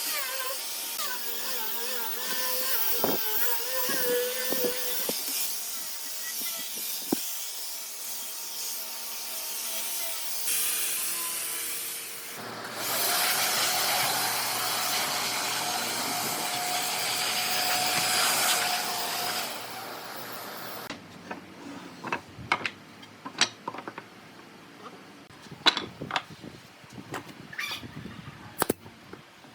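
Power tools working wood, running in stretches, with a louder steady run in the middle. This is followed by a series of sharp knocks and clicks.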